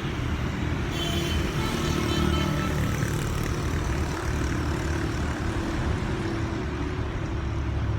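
A steady low rumble with a faint hum, even in level throughout.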